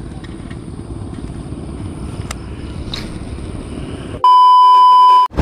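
A loud, steady beep tone lasting about a second, starting about four seconds in, with everything else cut out around it: an edited-in censor bleep. Before it, a low steady rumble.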